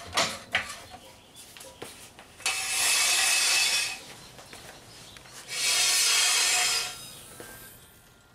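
A hydraulic floor jack being let down under a car: a few knocks, then two bursts of hiss, each a second or more long, from fluid rushing through the jack's opened release valve as the car is lowered.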